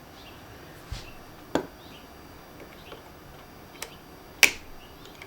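Four scattered sharp metallic clicks and taps, the loudest about four seconds in, from a bent piece of wire prodding inside a CNC router's collet to push out a broken, stuck bit.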